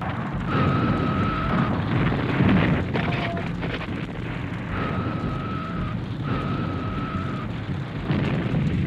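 Battlefield soundtrack of shellfire: a continuous low rumble of exploding shells. Three times, a steady high tone is held for about a second over the rumble.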